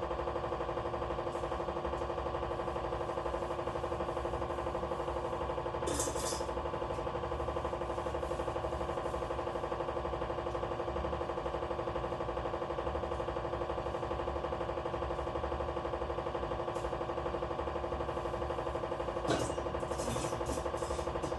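A steady hum made of several fixed pitches runs throughout, with a sharp clack about six seconds in and a few short clatters near the end.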